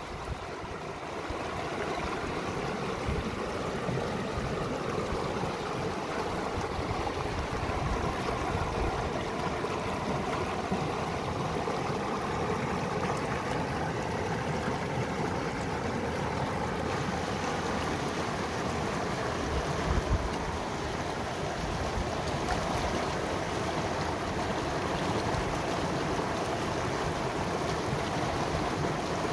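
Swollen, muddy stream in spate, overflowing from ponds, rushing over and around rocks: a steady, even rush of water.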